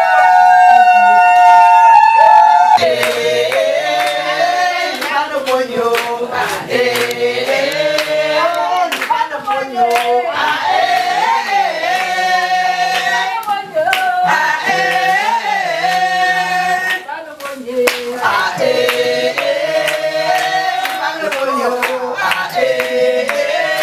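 A group of people singing together in chorus while clapping their hands in time. It opens with a loud, high, held note for the first couple of seconds before the group song takes over.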